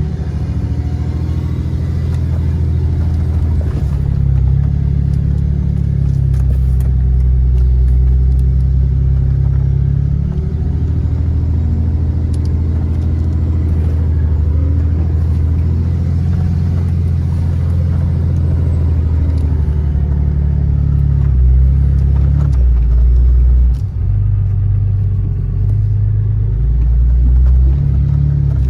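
Ram pickup's 6.7-litre Cummins inline-six turbo-diesel running under way on a rough dirt trail, its low engine note dropping and rising a few times as the truck slows and pulls again.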